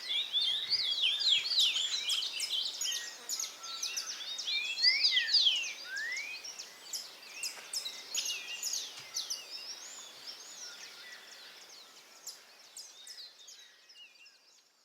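Several songbirds chirping and singing together in quick, overlapping high notes, busiest in the first half and fading out near the end.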